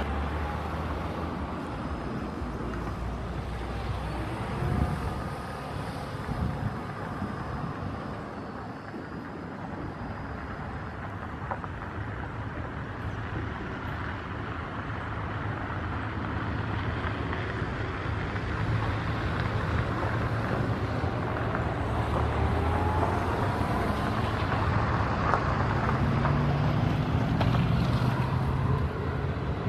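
Boeing 737-800's CFM56 jet engines running on the ground: a steady jet rumble with wind on the microphone. It grows louder in the second half, with a faint rising whine.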